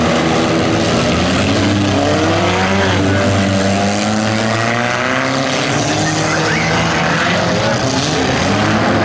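Several democross cars' engines running and revving at once, their pitch rising and falling as they accelerate and slow.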